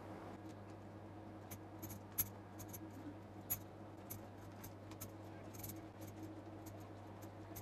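Faint, scattered light clicks and crackles of hands rolling paste-spread taro leaves into a tight roll, over a steady low hum. Two clicks stand out, about two and three and a half seconds in.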